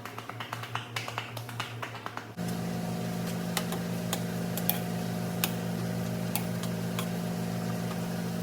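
Rapid irregular clicks and taps of a utensil against a bowl as a mushroom and nut mixture is mashed. About two seconds in, a steady low electric hum starts suddenly and runs under further scattered clicks.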